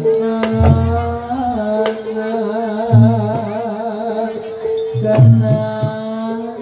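Live jathilan accompaniment music: deep kendang-style drum strokes under a long, held, wavering melodic line.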